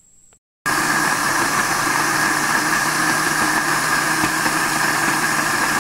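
Britânia countertop blender running at a steady speed, its blades churning chopped cucumber, apple, lemon and ginger in water; a loud whirr with a constant high whine that starts suddenly about half a second in.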